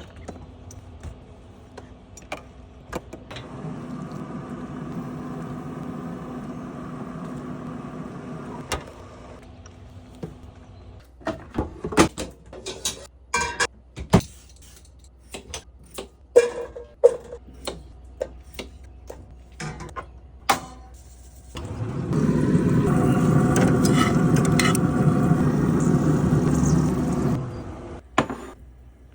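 Kitchen work sounds: utensils and dishes clattering in a run of sharp clicks and knocks, with a motorised kitchen appliance running loudly and steadily for about five seconds near the end before cutting off.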